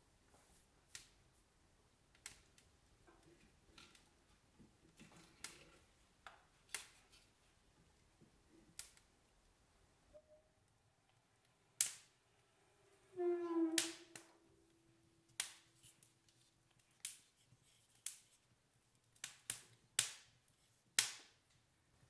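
Logs burning in a wood stove, crackling with scattered sharp pops and snaps at irregular intervals. About halfway through there is a louder, longer rasping sound with a ringing tone that fades over a few seconds.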